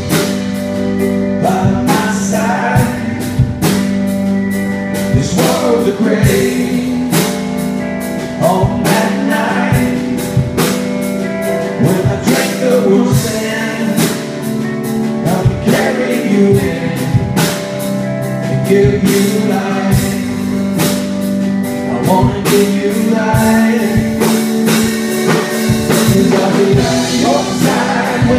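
Live band playing a worship song: drum kit keeping a steady beat under acoustic guitar and keyboard, with singing over it.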